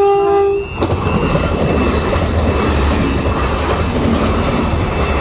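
A train's horn sounds and cuts off under a second in; then the train passes over the level crossing with a loud rumble and rattle of wheels. Under it the crossing alarm holds one steady flat tone, a sign the alarm has failed.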